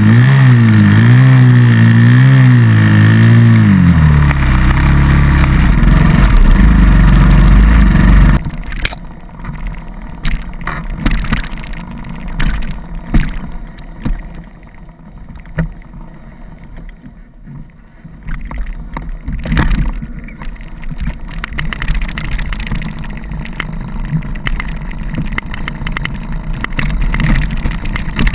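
Dirt bike engine revving hard on a climb, its pitch rising and falling. About eight seconds in the sound cuts abruptly to a quieter dirt bike on a rough trail, with scattered knocks and clicks, growing louder near the end as it comes closer.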